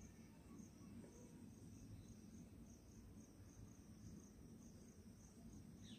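Near silence, with a cricket faintly chirping at an even pace of about three chirps a second.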